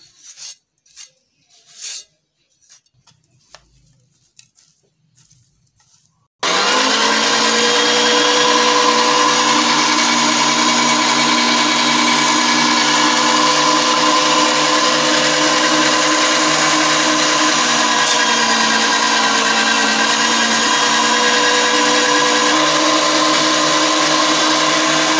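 Electric meat grinder switches on about six seconds in and runs with a loud, steady motor hum while it minces boneless chicken with chopped vegetables. Before it starts there are only a few light taps and scrapes.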